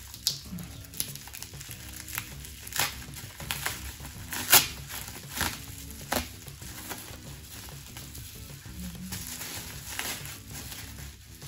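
Plastic wrapping crinkling and crackling in irregular bursts as a packaged bottle is unwrapped by hand, the loudest crackle about four and a half seconds in.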